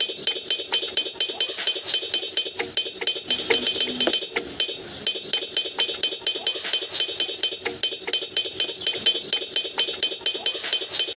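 Rapid, irregular light clinks and taps of small hard objects knocking together, as when miniature bricks and tools are handled.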